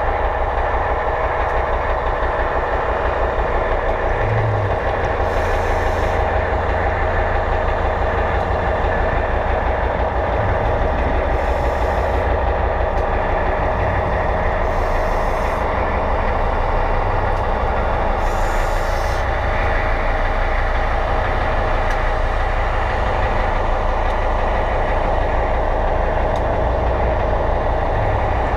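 Underwater propeller-polishing tool running steadily, heard through the water as a deep hum with a dense mechanical whine over it. Every few seconds a brief hiss breaks in, like a diver's exhaled bubbles.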